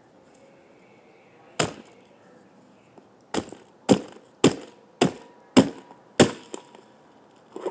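A chunk of brick smashing down on a Furby toy: one blow, then, after a pause, six quick blows about half a second apart.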